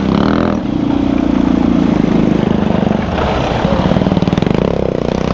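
Motorcycle engine running under way, with a steady rushing noise over it; the engine note shifts a couple of times.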